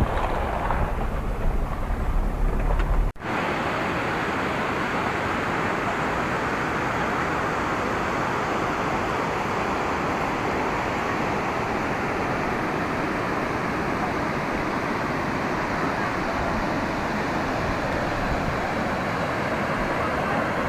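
Waterfall, falling water making a steady rushing noise. A little over three seconds in there is an abrupt cut from a heavier, deeper rumble to a steadier, even rush.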